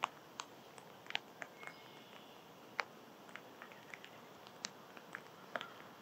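A small animal eating seed at a feeder: irregular small clicks and taps, a few each second.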